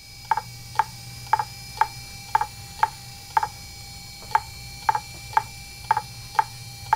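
Fujitsu MHK2048AT 2.5-inch laptop hard drive clicking about twice a second, a sharp regular click over a steady hum.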